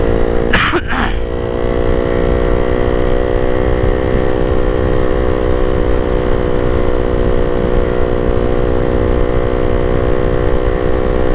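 Honda Sonic 150R's single-cylinder four-stroke engine running at a steady pitch while cruising at about 80 km/h, heard from the rider's position with wind and road noise. A short burst of noise comes about half a second in.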